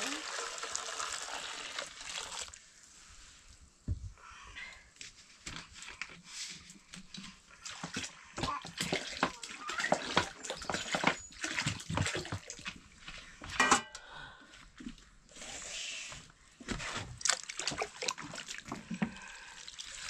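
Water splashing and sloshing in a container, with irregular knocks and clatters and a short lull about three seconds in.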